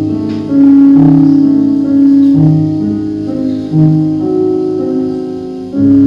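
Piano playing slow, sustained chords. A new chord is struck every second or two and left to ring and fade.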